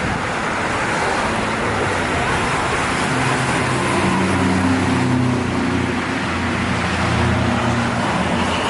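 Steady roadside traffic noise. About three seconds in, the low hum of a heavy vehicle's engine comes in and stays, as it passes close by.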